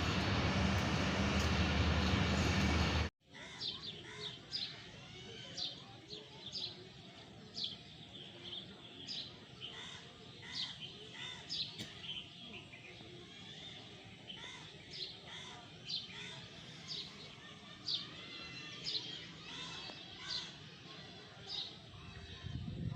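Loud train noise for about three seconds, cutting off abruptly. Then small birds chirping: many short, high chirps, one after another, over a low background hum.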